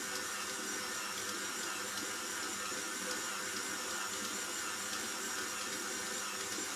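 KitchenAid stand mixer running steadily, its motor humming as it kneads dough in the steel bowl.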